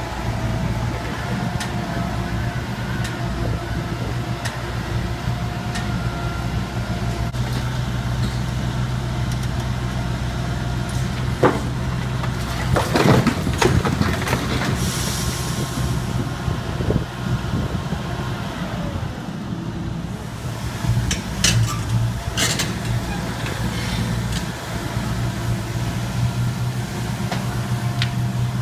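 Long-reach demolition excavator's diesel engine running steadily while its grab breaks stone from a masonry gable. Near the middle comes a burst of clattering falling stone and rubble, and a little later a few sharp knocks of stone against steel.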